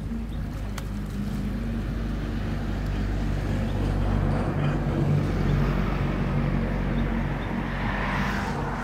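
A low, steady engine hum with a rushing noise over it, growing louder toward the middle and easing off near the end, like a motor vehicle or boat passing unseen.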